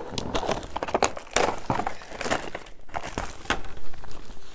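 Plastic wrapping on a boxed tool set being torn open with a fingernail and pulled off, crinkling and crackling in a run of sharp little clicks.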